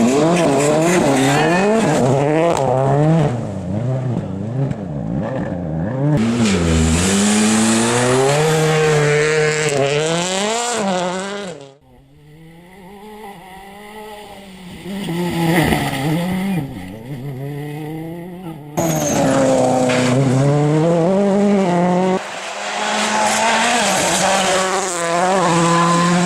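World Rally Cars' turbocharged engines driven hard on a stage, the revs climbing and dropping again and again through gear changes and corners. The sound cuts sharply about twelve seconds in to a quieter, more distant run, then jumps back to a loud close pass about nineteen seconds in.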